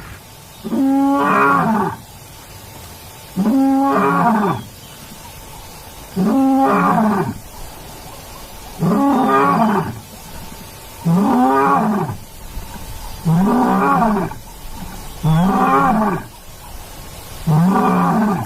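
A lion's roar played back across open savannah as a lure: eight roaring calls, each about a second long, rising and then falling in pitch, coming about every two and a half seconds and a little closer together towards the end.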